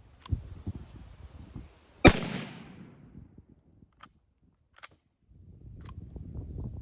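A single rifle shot from a Carcano M91 cavalry carbine firing 6.5×52 mm full metal jacket ammunition, about two seconds in, trailing off over roughly a second. Sharp metallic clicks and low knocks come before and after it.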